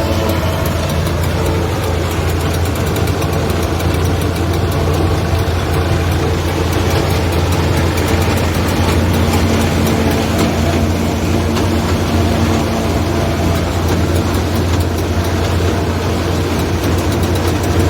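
Heavy engine of corn silage harvesting machinery running steadily: a loud, constant deep drone with a dense rushing noise over it.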